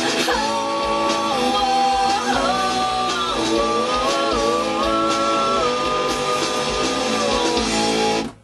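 Rock song with a sung vocal over guitar and band, cutting off suddenly near the end.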